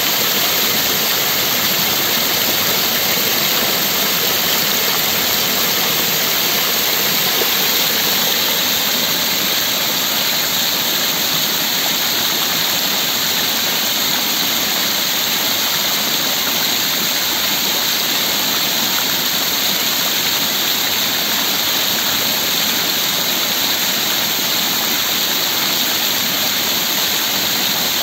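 Basin fountain's water jets splashing into the pool, a steady, unbroken rushing of falling water.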